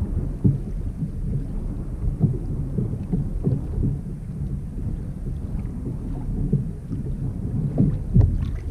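Wind buffeting an action-camera microphone out on open water: a steady, uneven low rumble with scattered small clicks.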